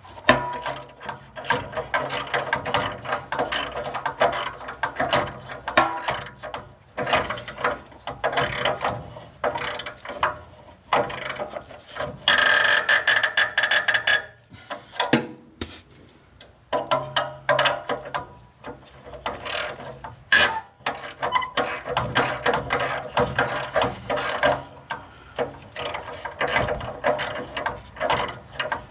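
Socket ratchet clicking in quick back-and-forth strokes as rusted, stiff exhaust nuts are worked along their studs. About midway there is a louder steady noise for about two seconds.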